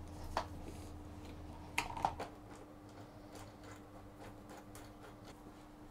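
Faint metallic clicks and taps of a battery cable lug and its nut being fitted onto a battery terminal, a few sharper clicks near the start, over a low steady hum whose deepest part stops about two seconds in.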